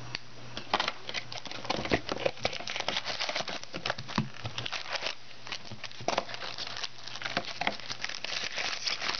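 Packaging of a trading-card box crinkling and tearing as it is unwrapped and opened by hand, with many small irregular crackles and rustles.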